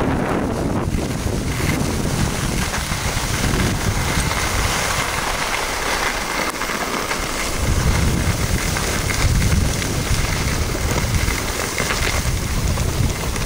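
Wind buffeting an action camera's microphone as a skier runs downhill at about 50–55 km/h, with the hiss of skis sliding over hard-packed groomed snow. The low rumble of the wind swells in gusts about two-thirds of the way through.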